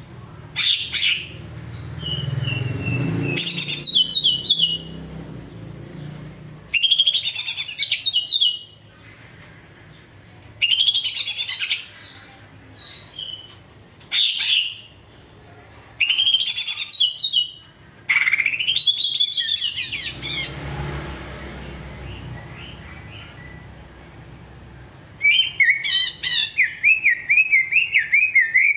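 Male green leafbird (cucak ijo) singing loud, sweet whistled phrases every few seconds. Near the end it runs into a long, rapid, wavering trill.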